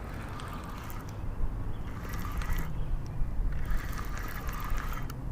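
Water lapping and trickling against a small aluminium jon boat over a steady low rumble, with scattered light clicks and knocks in short clusters.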